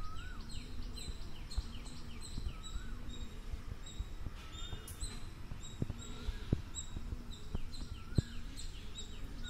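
Early-morning birdsong: birds chirping rapidly with high, short notes, and one bird repeating a short rising-and-falling whistle about every second and a half, over a steady low background rumble.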